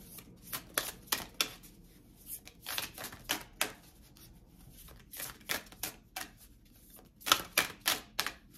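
Deck of astrology cards being shuffled by hand: runs of quick, sharp card clicks and slaps in several bursts with short pauses between.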